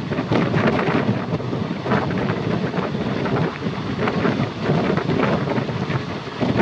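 Running noise of a moving train with wind rushing over the microphone, rising and falling in uneven gusts.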